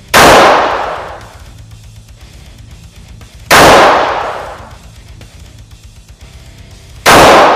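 Three shots from a compact .45-calibre pistol, about three and a half seconds apart. Each is loud and rings out for about a second.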